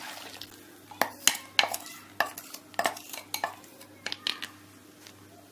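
A cooking utensil scraping and knocking against a non-stick wok as a liquid egg-and-milk halwa mixture is stirred: irregular clicks and scrapes, several a second at first, thinning out toward the end.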